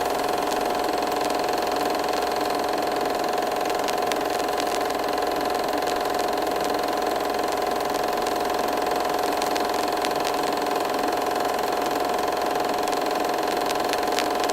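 An engine running steadily at a constant pitch, with a steady hum.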